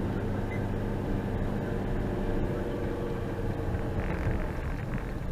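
A vehicle engine running steadily at constant speed, with a brief rise in higher noise about four seconds in.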